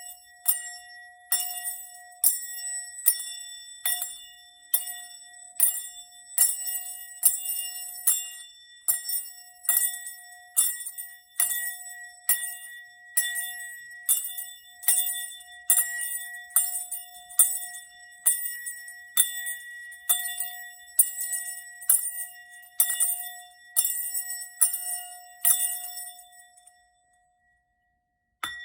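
A small metal bell struck in an even rhythm, a little more than once a second, each strike ringing on in two steady tones over a high shimmer, used for sound healing. The strikes stop shortly before the end, and after a brief silence a single new ring sounds with one clear high tone.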